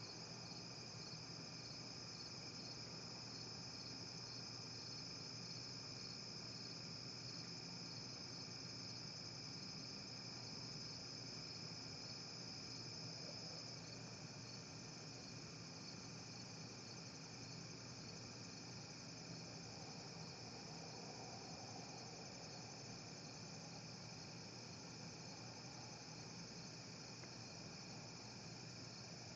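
Crickets trilling steadily in a continuous pulsing chorus, louder for the first half, over a faint steady low hum.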